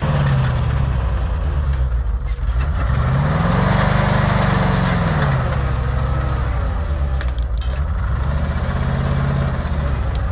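Logging truck's diesel engine running, revving up and back down about three seconds in, and again more briefly near the end.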